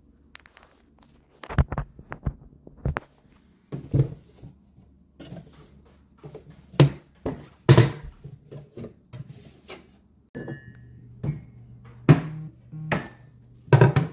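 Kitchen clatter: a string of sharp knocks and clinks, as of dishes, a cup and cupboard doors being handled. A steady low hum starts about ten seconds in.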